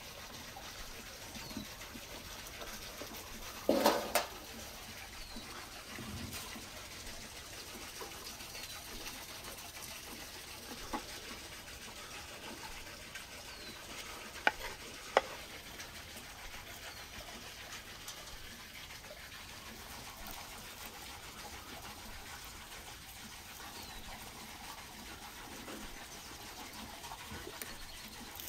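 Outdoor ambience with short bird chirps now and then and the clatter of serving food. There is a knock about four seconds in, then two sharp clicks about halfway through as a metal skimmer scoops cooked buckwheat from a cauldron onto a plate.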